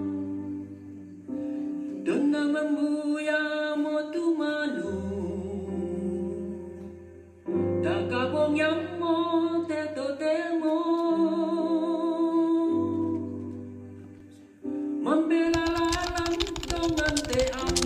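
A slow song: a voice singing long held notes with vibrato over guitar and sustained low notes. About three-quarters of the way through, quick rhythmic strokes join in.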